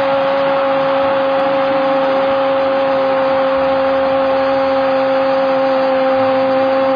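Football commentator's long, loud 'goooool' cry held at one steady pitch, over a cheering stadium crowd after a Boca Juniors goal.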